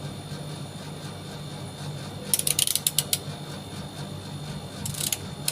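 Steady low hum of a running air-conditioning unit, with two runs of sharp rapid clicks over it: one a little past two seconds in, lasting under a second, and a short one near the end.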